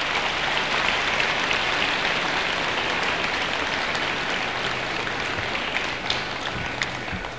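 Audience applauding: a dense clatter of many hands clapping, steady through most of the stretch and tapering off near the end.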